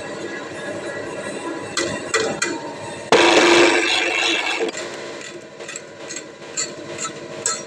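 Mattress spring coiling machine running, with sharp metallic clicks; about three seconds in a loud hissing rush lasts about a second and a half, then the machine goes on clicking evenly about twice a second.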